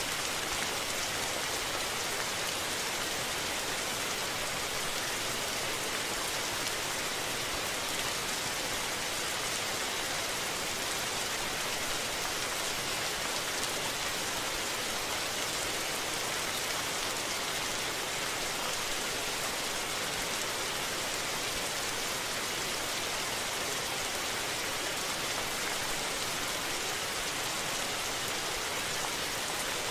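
Steady rain falling, an even hiss that holds level throughout, with no thunder.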